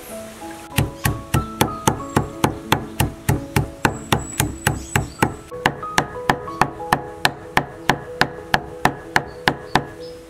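Knife chopping rapidly on a cutting board, about four even strokes a second, mincing a red ingredient finely. Background music plays underneath.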